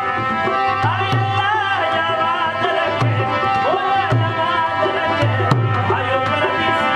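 Rajasthani folk music on harmonium and dholak: a steady harmonium drone and a gliding melody line over regular low dholak strokes.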